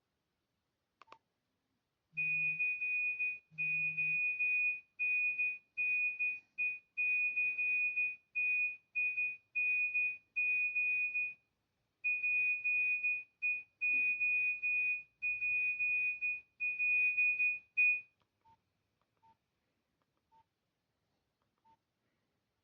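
Nokia 106 ringtone from the phone's loudspeaker: one high, unchanging beep tone pulsed on and off in a quick rhythmic pattern for about sixteen seconds, then stopping. A few faint short, lower beeps follow near the end.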